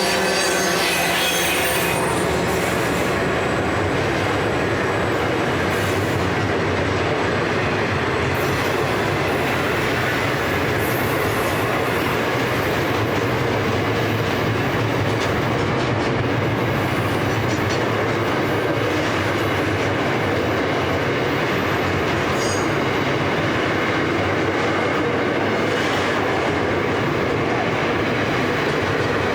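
A long freight train of container wagons rolling past on the rails, a loud, steady rumble of wheels on track.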